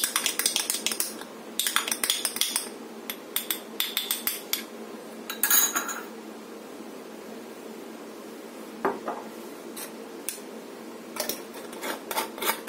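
A metal spoon stirring a smoothie in a glass jar, clinking rapidly against the glass in quick runs for the first several seconds. After a quiet stretch, a metal screw-on lid clicks against the jar rim near the end.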